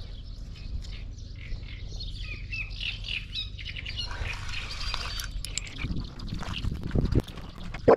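Birds squawking and chirping in short calls, bunched in the middle, over a steady low rumble. A few dull knocks near the end.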